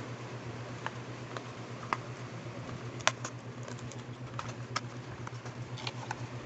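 Long fingernails tapping and clicking on a paperboard skincare box as its end flap is opened and the bottle is slid out: scattered sharp clicks, the loudest about three seconds in, over a steady background hiss of rain sound.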